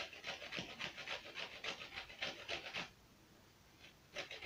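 Lemon rind being grated on a flat handheld grater: quick rhythmic rasping strokes at about four a second. They stop about three seconds in and start again near the end.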